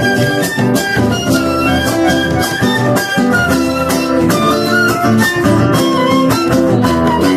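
Live Argentine folk music: acoustic guitars strummed in a steady rhythm, with a melody line moving above them.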